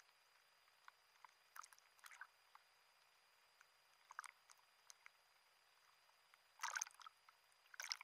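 Faint small waves splashing and lapping around a camera riding at the sea surface, with scattered little splashes and two louder washes of water over it near the end as it dips under.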